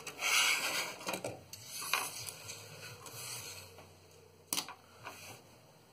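Hands handling the opened plastic shell and circuit board of a wireless mouse: rustling and light plastic clicks and taps, with one sharp click about four and a half seconds in.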